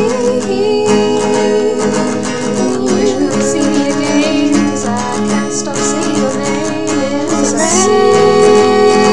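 Song with acoustic guitar and a singing voice holding long, wavering notes.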